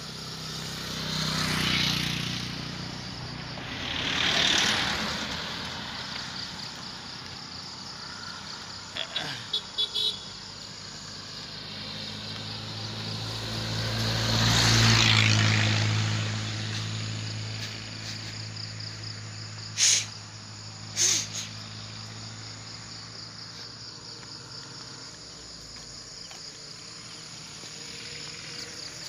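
Road vehicles passing one after another, each swelling up and fading: two quick pass-bys in the first few seconds and a louder one with a low engine hum around the middle. A steady high insect drone runs underneath, and two short sharp sounds come about a second apart past the middle.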